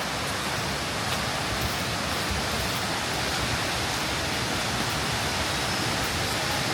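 Steady rush of falling and running water from a jungle river and waterfall, an even hiss and roar with no change.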